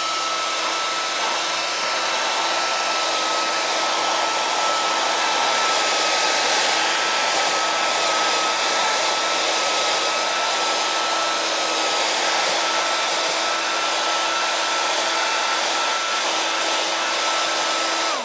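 Handheld hairdryer running on its high heat setting: a steady rush of air with a constant whine from the motor and fan.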